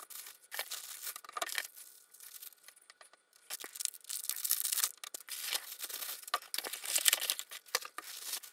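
Clear plastic packaging bags crinkling and rustling as they are handled and pulled open, in irregular crackly bursts with a quieter stretch a couple of seconds in.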